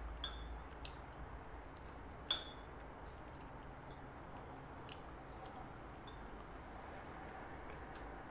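Light clicks and taps of wooden chopsticks and a bamboo skewer against a small dish as chicken-heart meat is pushed off the skewer, with two sharper clinks near the start and about two seconds in.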